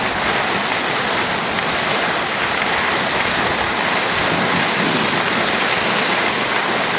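Steady, loud rushing hiss of skiing downhill: air rushing over the camera's microphone and skis sliding over the snow.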